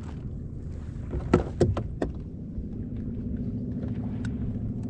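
Fishing reel being cranked on a kayak: a few sharp knocks about a second and a half in, then a steady whirr from about halfway on, over a low rumble.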